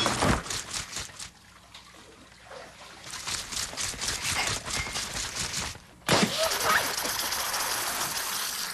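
A plastic bottle of orange drink being shaken in quick repeated strokes, then about six seconds in the drink bursts out in a loud, continuous spray of liquid. A brief cry rises as the spray begins.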